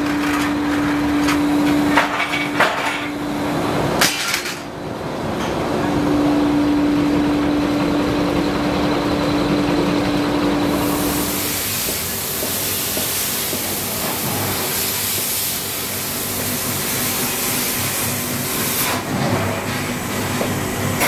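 Steel rolling mill running with a steady hum, with a few sharp metal knocks and clanks in the first seconds as a hot steel plate is worked through the rolls with tongs. From about eleven seconds on, a different steady workshop noise with a high hiss takes over.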